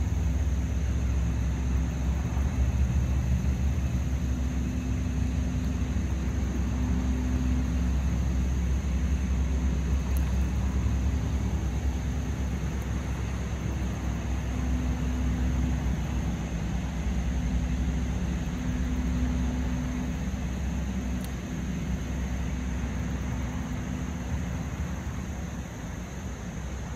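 Steady rumble of main-road traffic, cars passing in a continuous low drone that eases off slightly near the end.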